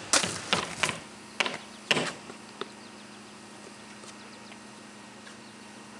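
Knocks and scuffs of shoes landing and stepping on concrete steps after climbing over a metal fence: several in the first second, two more before two seconds in, and a last light tap, then only a faint steady hum.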